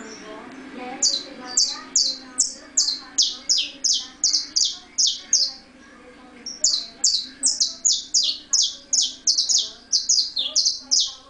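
Saffron finch (canário-da-terra) calling: a quick series of sharp, high notes, each dropping in pitch, about three a second. The series comes in two runs, with a short pause a little past the middle.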